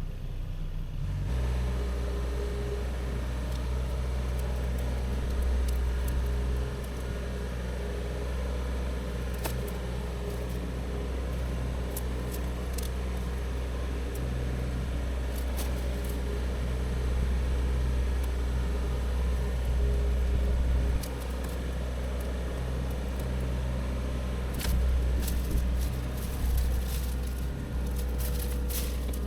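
A heavy machine's engine runs with a steady low rumble that shifts in level a few times. Over it come scattered snapping and crackling sounds of brush and branches, most of them in the middle and near the end.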